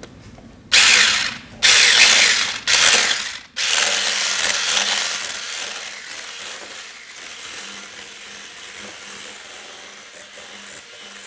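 Electric hand mixer with twin beaters whisking batter in a glass bowl. It runs in three short bursts about a second apart, then runs continuously, loudest at first and gradually quieter.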